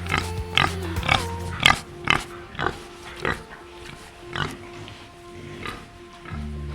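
Pigs grunting and squealing in short, irregular calls, thicker in the first three seconds and sparser after, over background music.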